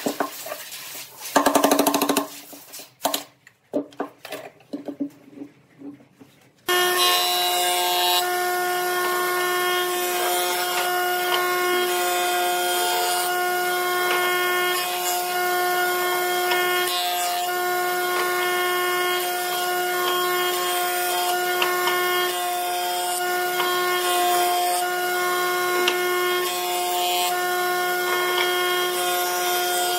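A wooden block knocked and shifted on a workbench, with one loud knock about two seconds in. About seven seconds in, a combination jointer-planer starts sounding suddenly and keeps running with a steady, many-toned hum while a glued-up block of laminated wood panels is jointed on it.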